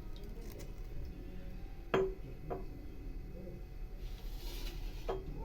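Kitchen vessels clinking: three short clinks with a brief ring, the loudest about two seconds in, a lighter one half a second later and another near the end.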